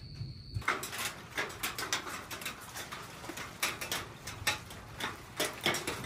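The first hailstones and heavy raindrops of a storm hitting a hard surface: scattered, irregular sharp clicks that begin about half a second in.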